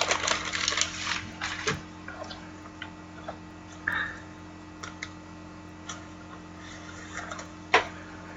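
Scattered faint clicks and taps, thicker in the first second or so, with a brief louder knock about four seconds in, over a low steady hum.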